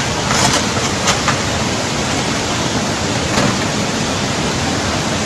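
Floodwater rushing in a steady, loud, unbroken wash, with a few brief sharp sounds about half a second, one second and three and a half seconds in.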